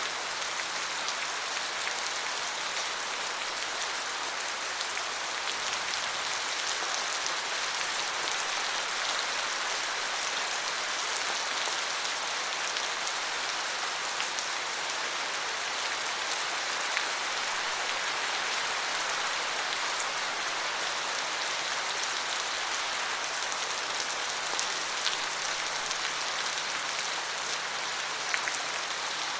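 Steady rain falling, an even hiss of many drops with scattered individual drop ticks.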